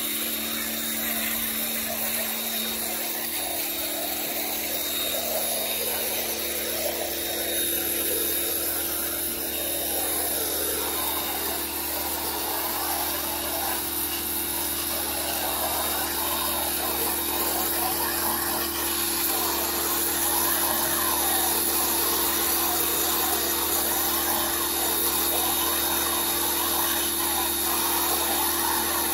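Electric pressure washer running steadily, a motor and pump hum under the hiss of the water jet as it sprays house siding to strip off mold and algae.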